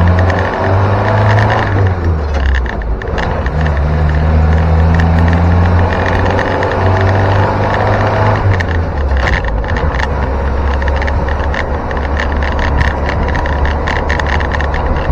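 Land Rover Series 2 station wagon on the move, heard from inside the cab: the engine runs steadily and its note changes twice, about two seconds in and again near the ninth second. Over it comes a constant clatter of rattles, which the owner puts down to the tailgate needing better rubber bumpers.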